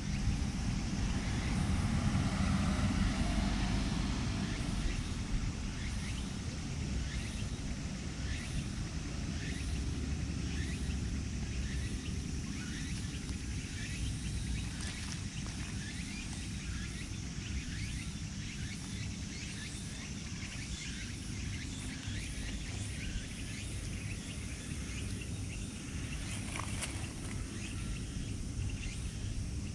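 Outdoor background: a steady low rumble, a little louder in the first few seconds, with many short, high chirps scattered throughout.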